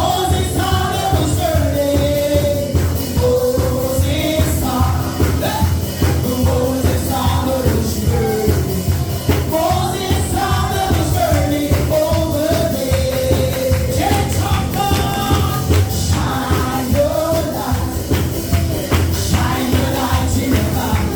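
Gospel worship song: voices singing a melody over a band with strong bass and a steady beat.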